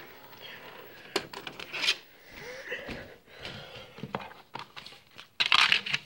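A plastic DVD case and disc being handled on a wooden table: scattered clicks and rubbing, with a louder rustling scrape near the end.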